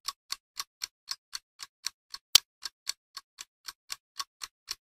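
Steady, even ticking at about four ticks a second, with one much louder click about halfway through.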